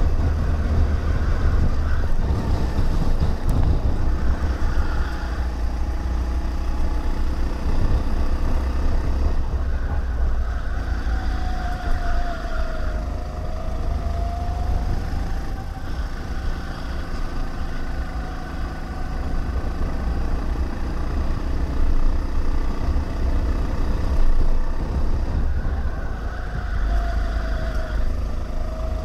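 Go-kart engine running at racing speed, heard onboard, its pitch dipping and rising again as the kart slows for corners and accelerates out, over a heavy low rumble.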